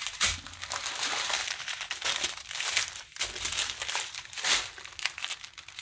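Small plastic zip bags of diamond painting drills crinkling as they are handled and sorted. The rustling is irregular and continuous, with sharp crackles.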